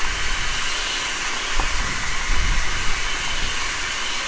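Hunslet saddle tank steam locomotive standing at rest with a steady hiss of escaping steam, and some low rumbling about halfway through.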